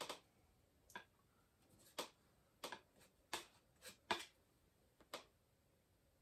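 Palette knife clicking and tapping against a paint palette while loading oil paint: about nine light, sharp clicks at uneven intervals, the last a little past five seconds in.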